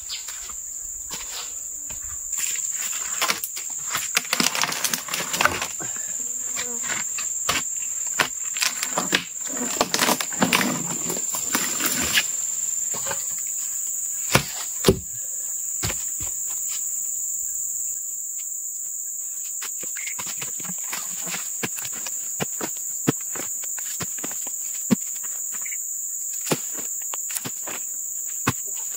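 Steady high-pitched drone of insects, crickets or cicadas, with scattered clicks and knocks that are busiest in the first twelve seconds and sparser after.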